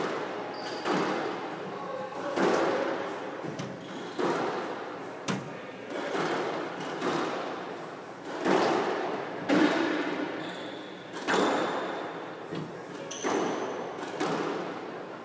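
Squash rally: the ball cracks off rackets and court walls about once a second, each hit echoing around the glass-walled court.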